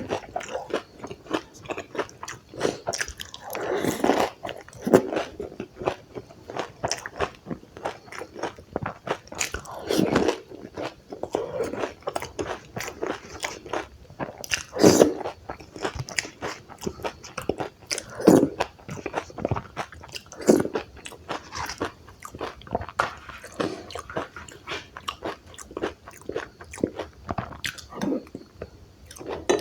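Close-up eating sounds: crisp puri shells filled with yogurt being bitten and chewed, with repeated crunches and wet chewing and a few louder bites spread through.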